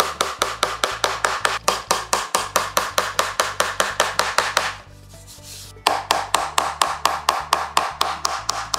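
A hammer tapping nails into wooden tailgate boards in a fast, even rhythm of about five light blows a second, with a pause of about a second midway before the tapping resumes.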